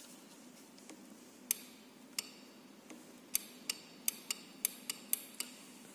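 Handlebar push button on a kids' battery-powered ride-on motorcycle clicking as it is pressed, about ten sharp clicks that come quicker toward the end. Only the clicks are heard: the motor does not run, which the owner puts down to the charger still being connected.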